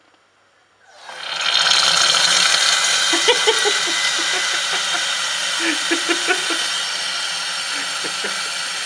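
Oil-change extraction unit running, a loud steady motor noise starting about a second in, with used engine oil and air gurgling and spitting through the hose into a plastic bottle as the old oil is drained out.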